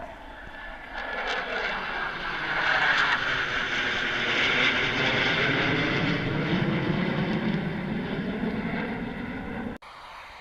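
A motor passing close by, swelling over the first few seconds and holding loud, its pitch sliding down as it goes past; it cuts off abruptly near the end.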